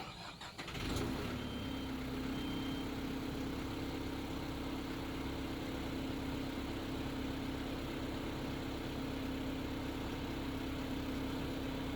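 The John Deere 310L EP backhoe's diesel engine starting about a second in, then running steadily at idle. Two short high beeps sound soon after it catches.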